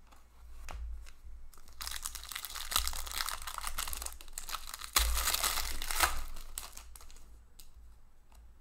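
Foil wrapper of a hockey card pack being torn open and crinkled by hand: a crackling rustle that starts about two seconds in, is loudest with a sharp rip around the middle, and fades out near the end.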